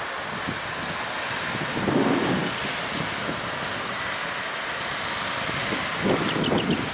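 Wind buffeting a camcorder's built-in microphone, swelling in gusts about two seconds in and again near six seconds, over a steady outdoor rumble and hiss. A few short high chirps come near the end.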